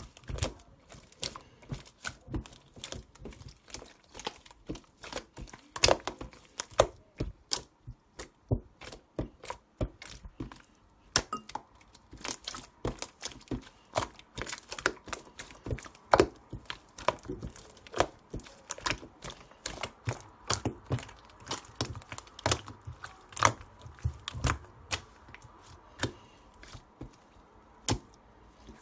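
A large, soft slime being squeezed, folded and pressed by hand, giving sharp irregular clicks and pops, a few a second.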